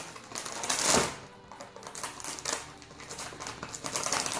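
Plastic cookie packaging crinkling and rustling, a louder rustle about a second in, over background music.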